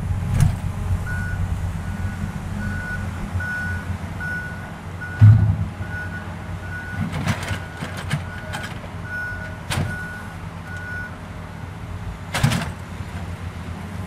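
A vehicle's reversing alarm beeping about twice a second over a steady engine rumble, stopping about eleven seconds in. A loud thump comes around five seconds in, with several sharper knocks later.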